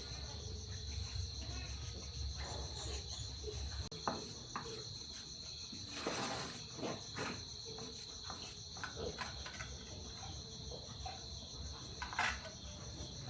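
Insects trilling steadily in a high, pulsing chorus, with a few scattered knocks and clicks and a brief rustle about six seconds in.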